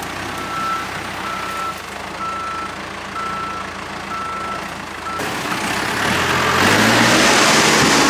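Backhoe loader's reversing alarm beeping steadily about once a second over its idling diesel engine as it backs up. The beeping stops about five seconds in, and the engine grows louder as the machine moves off.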